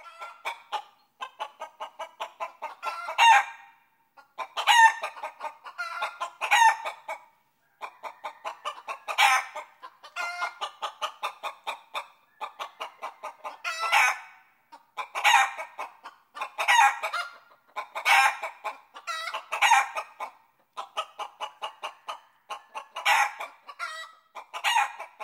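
Chickens clucking and cackling: runs of quick clucks that each build to a louder squawk, over and over.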